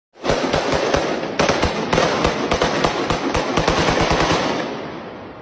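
Rapid gunfire: long strings of shots, several a second, broken twice by short pauses in the first two seconds, then dying away near the end.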